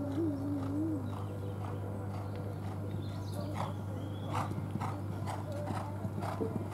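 Horse's hoofbeats on a sand arena as it jumps a fence and canters on, a regular beat of about two strides a second starting around halfway through.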